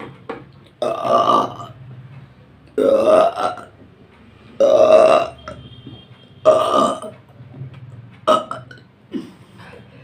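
A woman burping loudly, four long burps about two seconds apart, then two short ones near the end.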